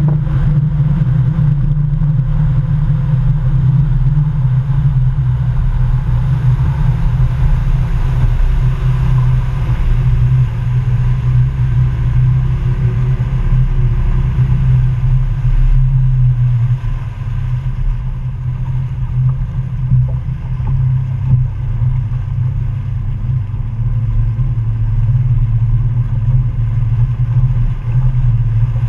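Bass boat's outboard motor running under way, with water rushing along the hull and wind on the microphone. The engine eases back a little over halfway through.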